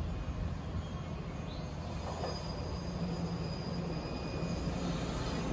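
NJ Transit Arrow III electric multiple-unit train approaching, a steady low rumble of wheels and motors growing slowly louder.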